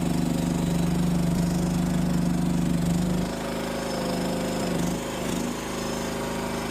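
Small gasoline engine of a compact mini skid steer running steadily; a little over three seconds in, its note changes and it becomes quieter, then runs on evenly.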